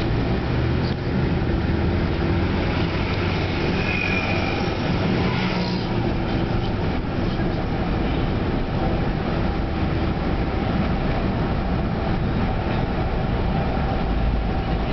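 Car driving, heard from inside the cabin: steady engine and road rumble.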